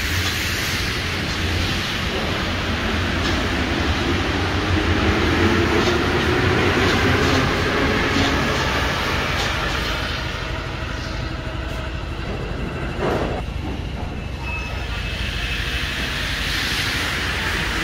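RATP MP73 rubber-tyred métro train running, a continuous rumble with a motor whine that shifts in pitch from about 4 to 9 seconds in. A single sharp knock comes about 13 seconds in.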